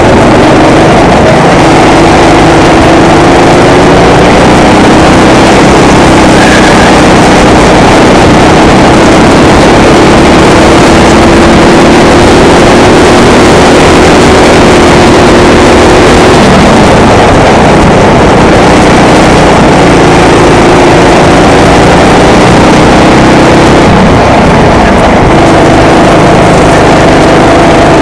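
Racing go-kart engine at speed, its pitch climbing slowly along the straights and dropping sharply for a corner about two-thirds of the way through, under heavy wind rush on a helmet-mounted microphone. The recording is very loud.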